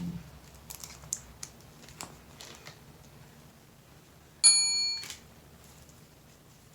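A single bell-like ding about four and a half seconds in, lasting about half a second, after a few faint clicks and rustles.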